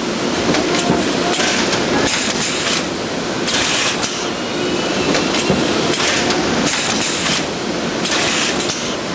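Carton conveyor and packaging-line machinery running with a steady clatter, broken by short bursts of hiss every one to two seconds.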